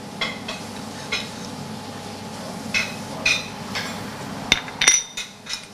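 Metal fork clinking and scraping against a white plate and a small sauce bowl: a string of separate sharp taps, the loudest near the end.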